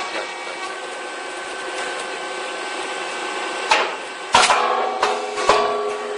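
Puffed rice cake popping machine running with a steady mechanical hum, then sharp knocks from the machine about four seconds in, the loudest a little later, with another near the end.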